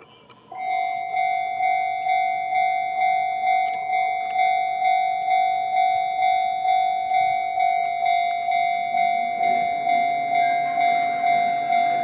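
Japanese railway level-crossing alarm switching on about half a second in: an electronic bell tone pulsing about twice a second, warning of an approaching train. A broader noise joins under it in the last few seconds.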